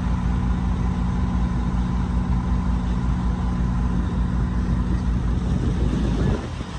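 Engine drone of a 52-foot Ocean yacht running under way: a steady low hum with water rushing along the hull. It drops in level and thins out about six seconds in.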